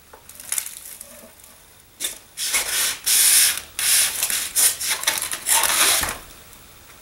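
Lightweight concrete countertop slab scraping and sliding across a worktable as it is set down and shifted, a run of gritty rubbing scrapes that begins about two seconds in and stops shortly before the end.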